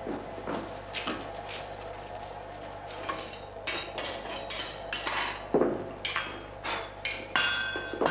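Blacksmith working hot iron: light metallic clinks of tongs and iron at the forge, then several ringing hammer blows on the anvil in the second half.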